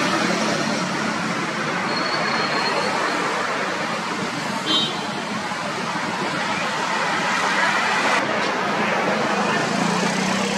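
Steady road traffic: cars, motorcycles and auto-rickshaws driving past, with a short horn toot about five seconds in.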